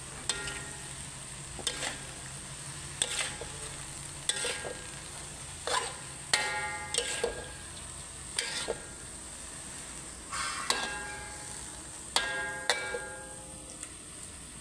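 Metal spatula scraping and striking a cast aluminium wok while pork belly and Chinese celery are stir-fried. Irregular clanks, every second or so, each leaving a short metallic ring, over a steady sizzle.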